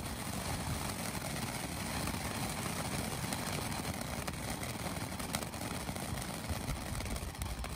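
Freedom Fireworks 'Live Wire' ground fountain burning, a steady hiss of spraying sparks with a few faint crackles.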